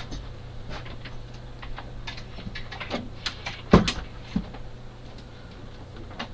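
Scattered light clicks and knocks of objects being handled, with one sharp thump a little under four seconds in and a smaller knock just after, over a steady low hum.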